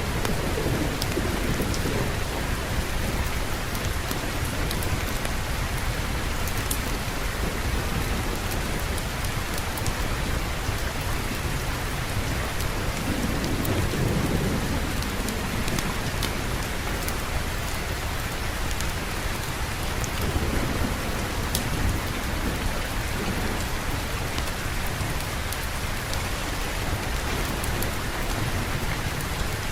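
Steady heavy rain falling, with low rumbles of distant thunder swelling and fading about three times: near the start, around the middle, and about two-thirds through.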